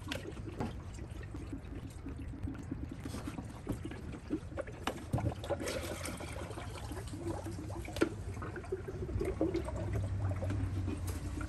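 Radiator coolant pouring and trickling down from a filling funnel into the radiator as the cooling system is refilled, with a couple of light clicks.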